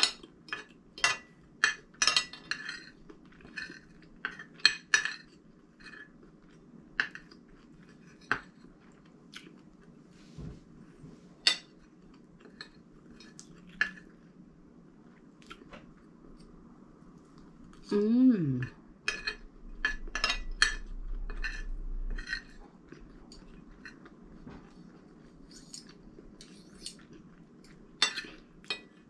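Metal spoon and fork clinking and scraping against a ceramic plate while eating: quick taps for the first few seconds, then sparser. A short falling vocal sound comes about 18 seconds in.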